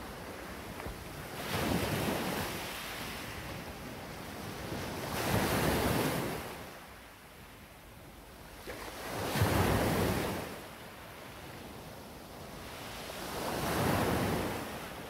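Waves breaking on a beach, four times about four seconds apart, each one swelling and falling away.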